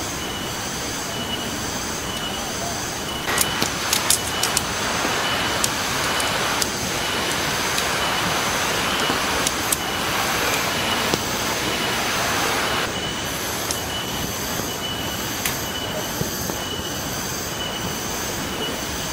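Steady rush of a rocky stream under a steady high whine. About three seconds in, tent pole sections click sharply as they are fitted together, followed by a louder rustle of poles and nylon tent being handled for several seconds.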